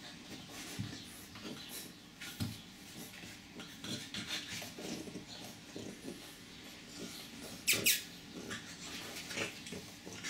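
Chow Chow puppies play-wrestling on a tile floor: scattered scuffling and claw clicks, with a sharp high squeak about eight seconds in.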